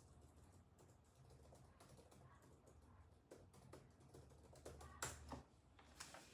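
Faint typing on a computer keyboard: irregular key clicks with a brief quicker cluster about five seconds in, over a faint low hum.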